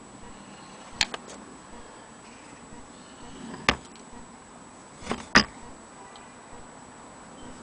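Antique Willcox & Gibbs sewing machine being handled: a few sharp clicks and taps, one about a second in, one near the middle, and a close pair a little later, over a faint steady hiss.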